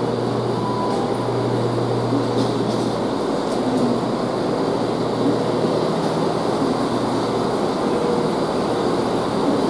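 Chiltern Railways Class 168 diesel multiple unit standing at the platform, its underfloor diesel engines idling with a steady low hum.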